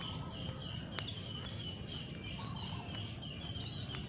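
A short, high chirp repeated evenly about three times a second, from a small calling animal, over a steady low outdoor rumble.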